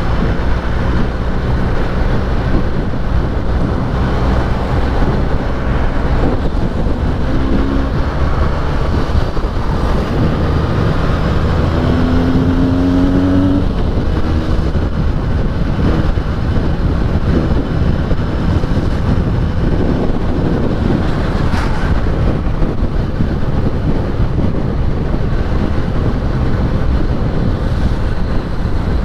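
Benelli 302S two-cylinder engine on its stock exhaust, running under way while being ridden, with rushing wind over the microphone. The engine pitch rises briefly a little under halfway through.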